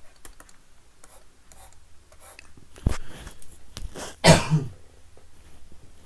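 A man clearing his throat with coughs: a short one about three seconds in and a louder one just after four seconds.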